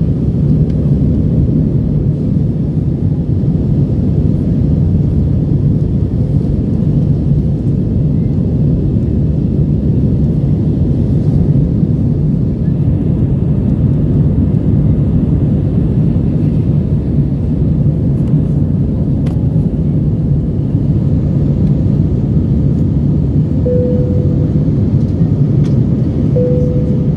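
Steady rumble of an Airbus A319's engines and rushing air heard inside the passenger cabin in flight, with two short tones near the end.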